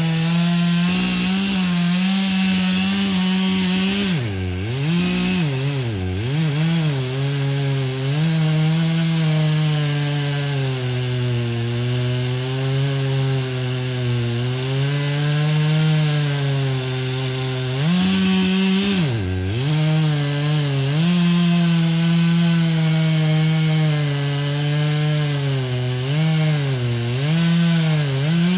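Two-stroke chainsaw running hard and cutting through wood. Its pitch sags and recovers as the bar bites, with deep dips about four to six seconds in and again near the twenty-second mark.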